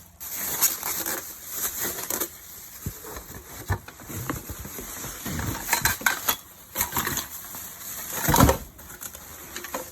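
Packaging being handled during unboxing: irregular rustling and crinkling with scattered clicks and small knocks, and a louder bump about eight seconds in.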